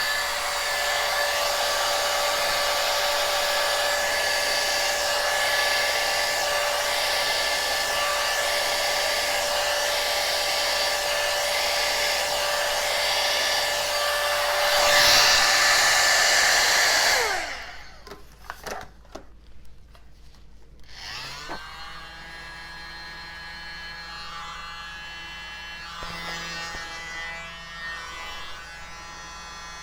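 An electric hair dryer running steadily, blowing wet acrylic paint outward into a firework bloom; it gets louder about fifteen seconds in, then winds down a couple of seconds later. A few clicks follow, then a quieter small electric motor starts and runs with a steady, lower buzz.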